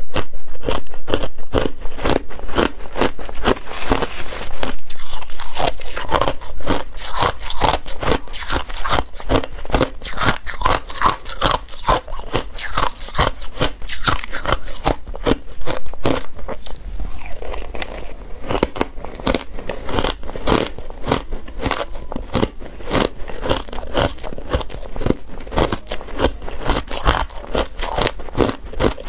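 Crushed ice being chewed close to a clip-on microphone: a rapid, continuous crunching and crackling, loudest in the first half and somewhat softer after the middle.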